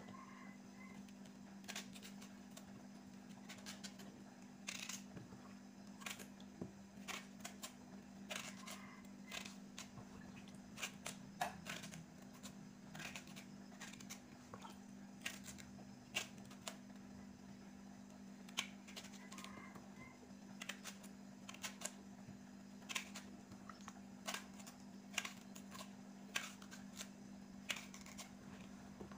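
Small knife cutting young green bananas into chunks by hand: irregular sharp clicks and snaps of the blade through the firm flesh, over a steady low hum.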